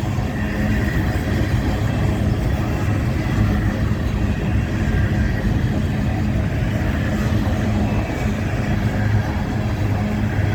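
Empty BNSF freight train passing close by: a steady low rumble of rolling cars with a constant low engine drone.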